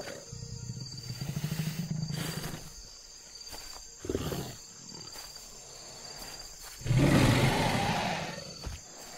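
Dubbed dinosaur growl and roar sound effects: a low, rattling growl for the first two seconds or so, a short snarl about four seconds in, and a loud roar about seven seconds in that is the loudest part.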